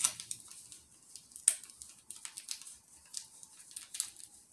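Irregular dry scratching and scraping of a fingernail picking and peeling a sticker label off the back of a dish, with a sharper scrape at the start and another about a second and a half in.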